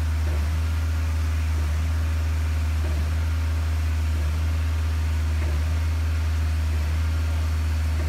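Engine of a concrete pump running steadily, a constant low drone that does not rise or fall.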